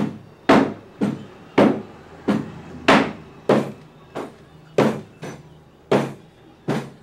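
A post office hand stamp is brought down again and again on mail on a wooden desk. It makes about a dozen sharp knocks at a steady pace, roughly one every 0.6 s, a few of them lighter.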